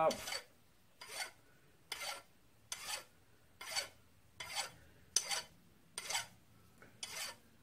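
Hand file rasping across a small metal part in short, even strokes, about one to two a second.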